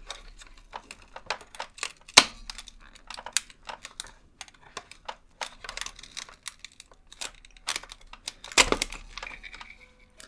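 Irregular plastic clicks and knocks from prying at a portable radio's speakers inside its opened case. The speakers are glued in. The two loudest knocks come about two seconds in and near the end.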